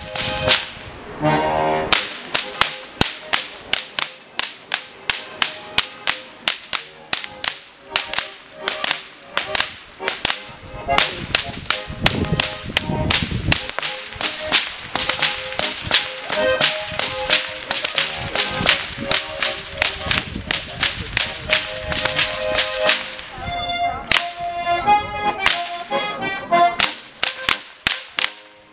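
Several Goaßl whips cracked in time by a group of Bavarian Goaßlschnalzer, giving a steady run of sharp cracks a few a second over an accordion playing a tune. Near the end the cracking thins out and the accordion stands out.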